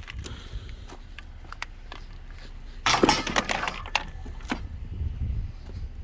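Junk being rummaged through and handled, likely a box of electrical cords: scattered clinks and knocks, with a louder clatter about three seconds in.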